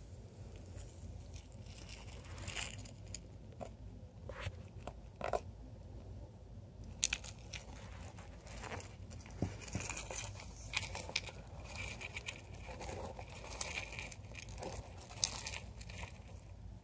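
A small pet rodent burrowing in loose wood-shaving and paper bedding: irregular rustling and crunching of the shavings, with scattered sharp clicks, busier in the second half.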